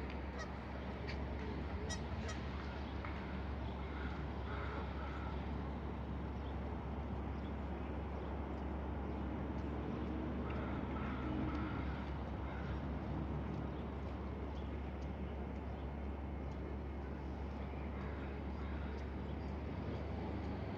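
Outdoor ambience: a steady low rumble with faint bird calls now and then, among them waterfowl.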